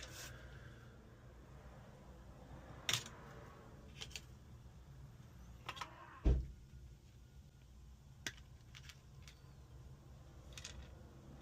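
Scattered small clicks and taps of small tools against phone parts during a repair, one every second or two, with a single low thump about six seconds in.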